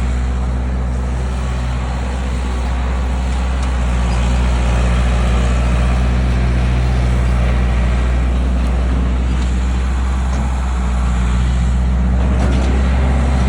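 Skid steer engine running steadily, a loud low drone with machine noise over it, getting a little louder about four seconds in as it works the gravel.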